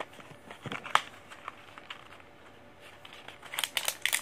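Small white cardboard vape box being opened by hand: one sharp click about a second in and a few faint taps, then a run of short clicks and rustling near the end as the contents are slid out of the box.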